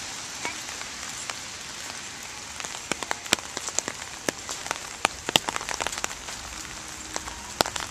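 Steady rain hiss, with scattered sharp ticks of drops landing close by, more frequent from about three seconds in.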